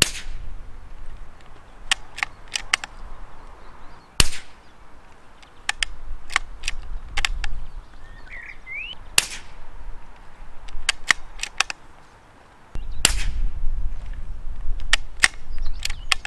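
Suppressed .22 LR rifle firing four shots about four seconds apart. Each shot is followed by a quick run of mechanical clicks as the action is worked to chamber the next round.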